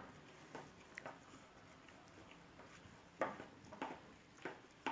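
Faint, irregular clicks and soft squishes of a utensil stirring a mixture of red liquid glue and coloured water for slime, a few taps against the container.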